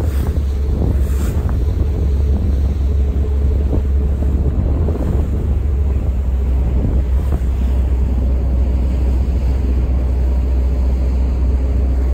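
Wind buffeting the microphone aboard the moving Staten Island Ferry: a steady low rumble with a rush of wind and water over it.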